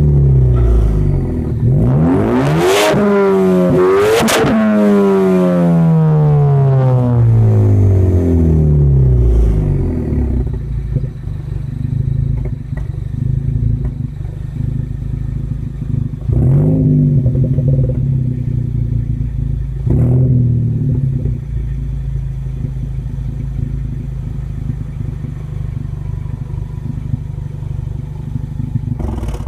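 Ford Focus ST exhaust with a Borla Pro XS muffler, heard at the tailpipe: the engine is revved twice in quick succession in the first few seconds, its pitch climbing and then sinking slowly back to idle. Two short throttle blips come about midway, and it idles steadily until it cuts off at the end.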